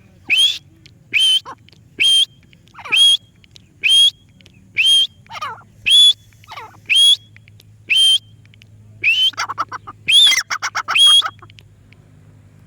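Parrot giving short rising whistled calls, one about every second, then a quicker run of calls near the end.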